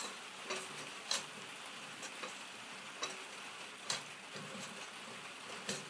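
A few light, irregularly spaced metal clicks and taps over a faint steady hiss, as the smoke generator's threaded pipe is turned into the tapped hole in the barbecue's cast aluminum base.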